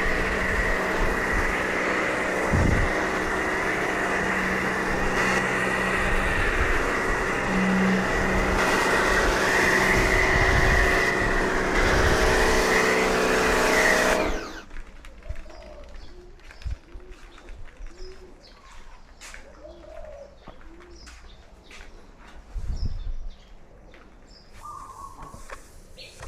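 Electric high-pressure washer running steadily with a motor hum and water hiss, stopping abruptly about halfway through. Doves then coo softly, a few short repeated calls, along with some bird chirps.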